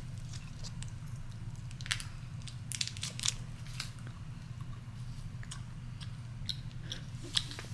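A person chewing crunchy food close to the microphone: irregular small crunches over a low steady hum.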